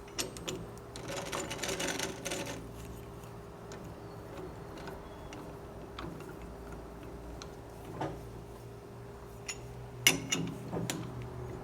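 A small motor hums steadily, with scattered light metallic clicks and a short burst of scraping about a second in.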